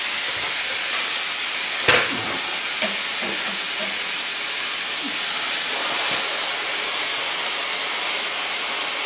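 Plasma cutter cutting steel on a truck axle: a steady hiss, with one sharp crack about two seconds in.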